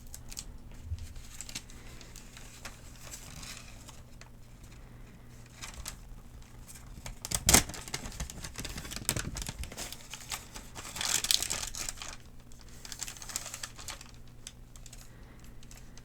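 Thin paper medication guide being handled and crinkled, with irregular crackles. The sharpest crackle comes about seven and a half seconds in, and a denser run of crinkling follows around eleven seconds.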